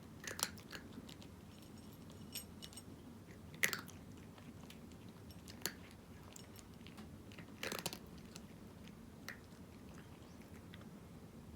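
A cat crunching dry kibble: a few sharp crunches spaced irregularly a second or two apart, the loudest near the middle and about two-thirds of the way through.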